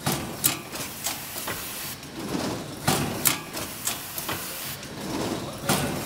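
Automatic packing and wrapping machine for microwave popcorn bags running: a steady mechanical clatter with repeated sharp clacks at uneven intervals.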